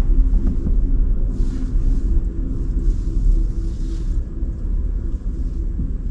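Cadillac Lyriq electric SUV driving on a wet road: a steady low rumble of road and tyre noise. Two brief hissing swishes come in, about a second and a half in and again around three seconds in.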